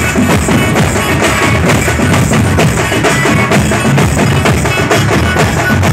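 A group of drummers beating white-headed side drums with pairs of thin sticks in a loud, fast, steady rhythm, with deep bass-drum beats underneath.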